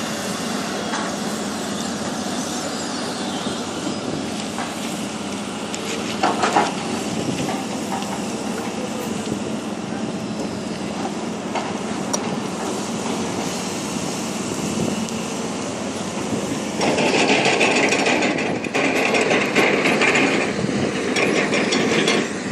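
Heavy construction machinery working, chiefly a tracked excavator's diesel engine running as it digs, with a few knocks and clanks. The noise grows louder and denser about three-quarters of the way through.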